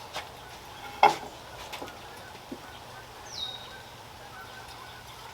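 A sharp knock about a second in and a few faint ticks, then a bird's short high call that slides down and levels off, about three seconds in.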